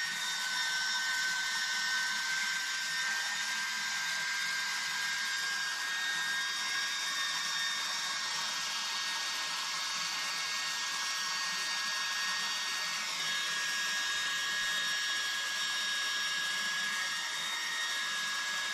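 Two small 30 x 30 mm aluminium-cased RC cooling fans, one Surpass Hobby Rocket and one unbranded, running together off a battery with a steady high whine and airy hiss. One of the whining tones shifts slightly about two-thirds of the way in.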